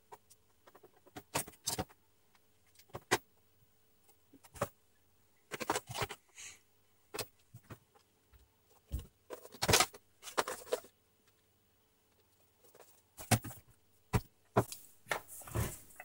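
Plastic housing parts of a Scarlett vacuum cleaner being handled and fitted back together during reassembly: scattered irregular clicks and knocks with a few short scrapes.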